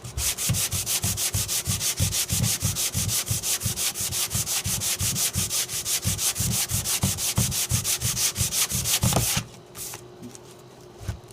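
Hand sanding with a Norton hook-and-sand foam sanding block: fast, even back-and-forth strokes of sandpaper, about four or five a second, stopping about nine seconds in.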